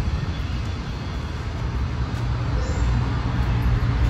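Road traffic noise with a motor vehicle's engine running close by. Its low hum grows louder over the last second or so.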